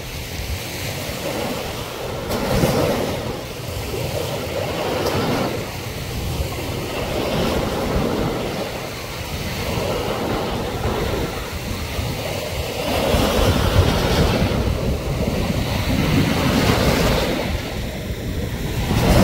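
Small waves breaking and washing up on a sandy beach, swelling and falling every few seconds, with wind on the microphone.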